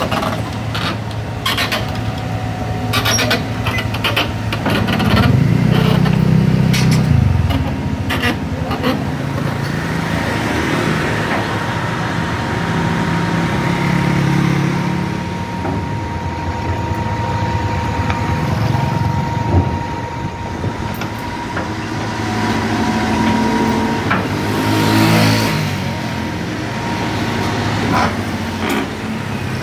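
Diesel engine of a Caterpillar 320 GC tracked excavator running and revving as the machine drives on its steel tracks, louder about five seconds in, with clanks and knocks from the tracks early on and a thin steady whine through the middle.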